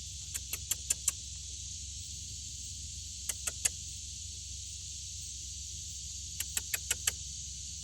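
Steady high drone of insects, broken three times by quick runs of three to five sharp ticking notes that get louder through each run.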